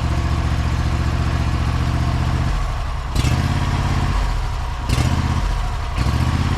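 Riding lawn mower engine running at idle while it tows a chicken coop; the engine note dips briefly a few times, and two sharp clatters come about three and five seconds in.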